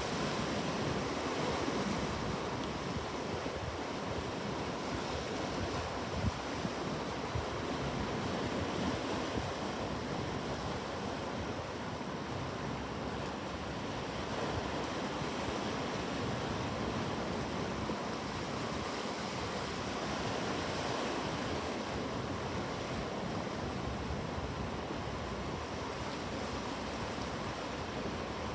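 Sea waves surging and washing onto a shore: a steady surf with gentle swells in loudness.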